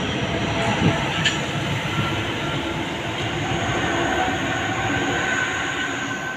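Two electric passenger trains running past along a station platform at the same time, a steady rumble of wheels on rail that eases slightly near the end.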